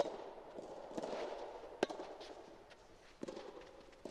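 Rackets striking a rubber soft tennis ball in a rally: a serve, then two more sharp hits about a second and a half apart, each with a short echo.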